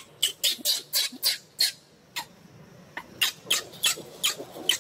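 Young macaque screaming in a rapid run of short, high-pitched shrieks, breaking off for about a second midway before starting again.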